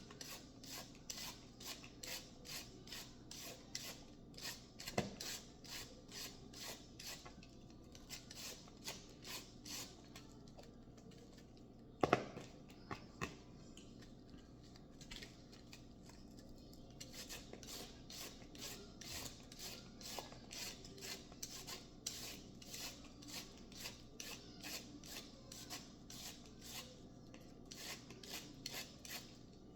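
Faint, rhythmic rasping strokes of food being shredded or cut by hand, about two to three strokes a second, pausing briefly twice. A sharp knock comes about five seconds in, and a louder clatter, like a utensil set down, about twelve seconds in.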